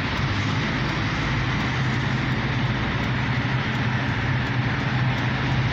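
Steady car engine hum and road noise, heard from inside a car's cabin.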